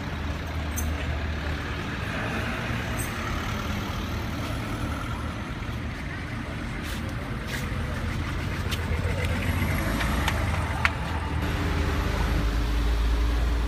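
Lamborghini Aventador's V12 idling: a steady low rumble, with a few sharp clicks about halfway through.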